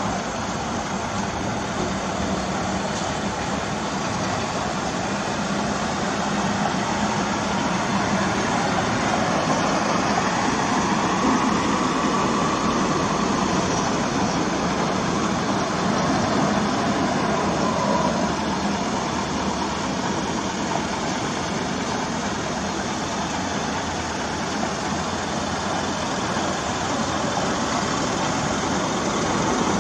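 Steady traffic noise from a convoy of garbage trucks, compactor and container trucks, driving past along the road below with their diesel engines running.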